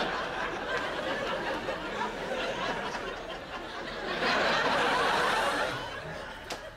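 Studio audience laughing, with a second swell of laughter about four seconds in that fades near the end.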